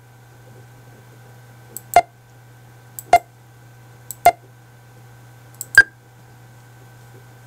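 Computer mouse button clicked four times, about a second or so apart, each sharp click with a faint tick just before it, as points are placed one by one on a line being digitized. A steady low hum runs underneath.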